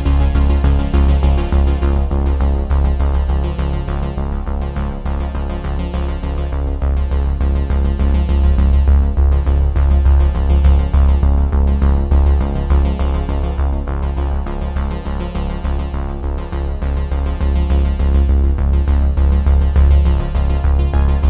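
Background music: a synthesizer-led electronic track with a strong, steady bass.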